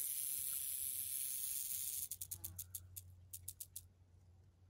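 Northern Pacific rattlesnake shaking its tail rattle, a defensive warning: a steady high-pitched buzz that breaks about two seconds in into separate clicks, which slow and stop near four seconds.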